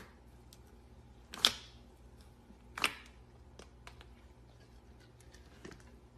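Glitter slime being handled: two sharp pops about a second and a half apart, with faint small clicks between them.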